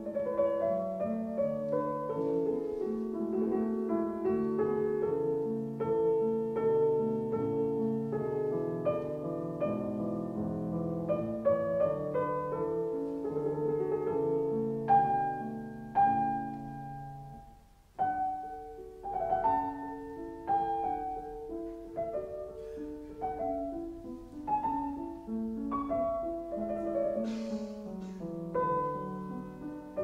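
Background piano music: a steady flow of single piano notes and chords. It fades almost to silence about eighteen seconds in, then the playing resumes.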